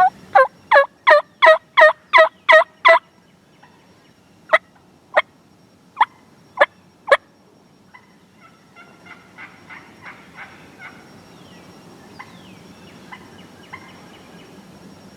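Turkey yelping and clucking: a loud run of about nine quick yelps, then five sharp single clucks, then a softer, fainter series of notes.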